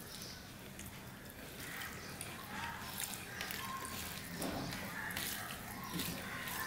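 Fingers mixing cooked rice with curry on a steel plate: soft wet squishing with scattered faint clicks.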